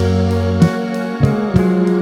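Background music led by guitar, with sustained notes and chord changes about every half second.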